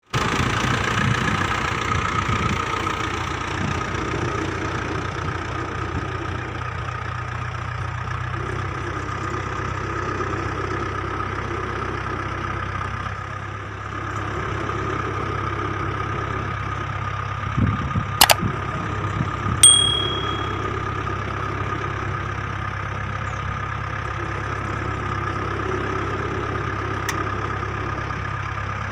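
Mahindra 475 DI tractor's 42 HP four-cylinder diesel engine running steadily under load as it pulls a seed drill through the field. About two-thirds of the way through there are a couple of sharp clicks and a brief metallic ring.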